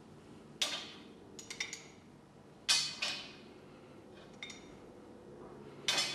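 Steel pipe wrench clinking against a magnetic oil drain plug as it is offered up to the magnet: sharp metallic clinks, three louder ones about half a second, nearly three and about six seconds in, with lighter taps between.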